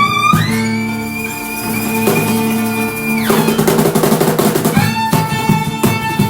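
Band music with violin and drum kit: a high held note that slides down about three seconds in, followed by a drum roll, with the band picking up a steady beat again near the end.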